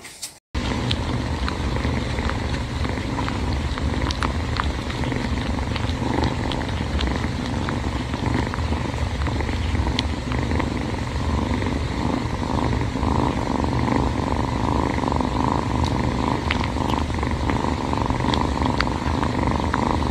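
Orange-and-white kitten purring steadily.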